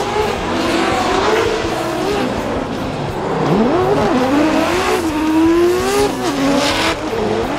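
Drift car's engine revving hard, its pitch climbing and falling again and again as the throttle is worked, with one sharp climb a little past three seconds in. Tires squeal as the car slides sideways.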